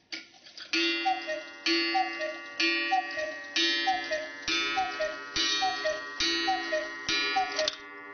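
August Schwer 8-day Black Forest cuckoo clock striking eight o'clock: eight two-note cuckoo calls, high then low, from its bellows pipes, each with a ringing gong strike, about one a second.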